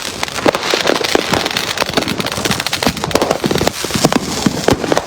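Dense barrage of fireworks: many overlapping bangs, pops and crackles from consumer mortars and firecrackers going off all around.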